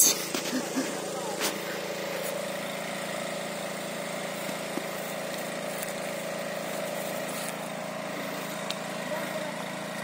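Small truck's engine idling steadily, with a short burst of noise right at the start.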